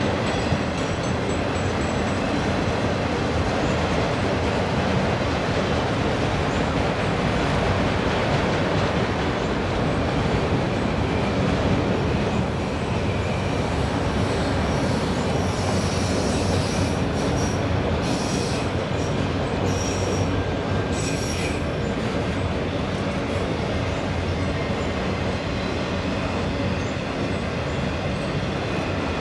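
Freight train of autorack cars rolling past, a steady noise of steel wheels running on the rails, with short high-pitched wheel squeals about halfway through.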